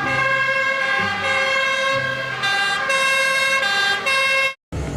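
Toy fire engine's electronic siren sound: a buzzy, stepping pattern of tones that repeats, then cuts off abruptly near the end.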